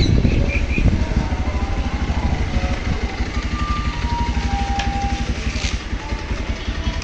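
A motorcycle engine running close by, with a fast, steady low pulsing. A few short tones sound briefly near the middle.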